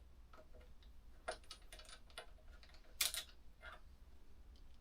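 Faint, scattered metallic clicks and taps of hand tools and small parts while a motorcycle handlebar's bar-end weight is being undone, the clearest about a second in and again about three seconds in.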